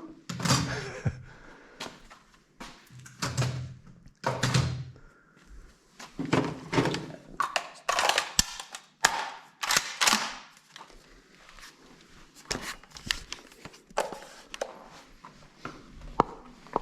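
Irregular sharp clacks and thunks of firearms being handled and reloaded at an indoor range, a dozen or more scattered strokes, some closely bunched around the middle.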